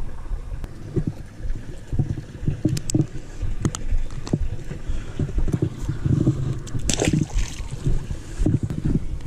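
Wind buffeting the microphone in uneven low rumbling gusts, with a few sharp clicks and taps of handling, the loudest about seven seconds in.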